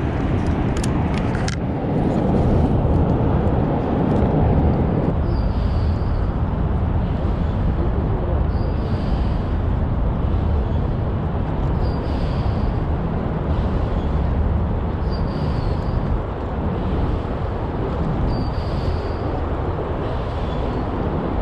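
Steady city traffic noise with a low, uneven rumble, and a faint short high chirp repeating about every three seconds. A few light clicks in the first two seconds.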